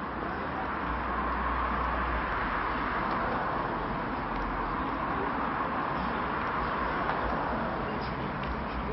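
Steady city street background noise, a constant hum of traffic, with low wind rumble on the microphone that swells now and then.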